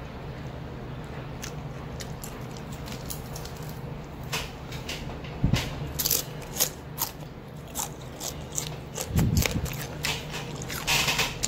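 Crispy pan-fried golden threadfin bream tail being eaten. Irregular sharp crunches start about four seconds in, with a couple of dull thumps, and are densest near the end.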